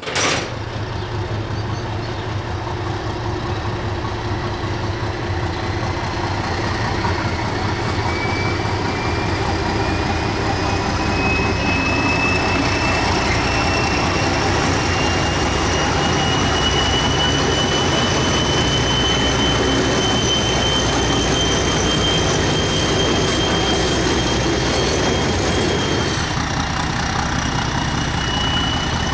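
English Electric-built NZR Di class diesel-electric locomotive running under its own power on a slow test run, with a steady engine drone and a thin high whine that rises slowly in pitch. About three seconds before the end the sound shifts abruptly.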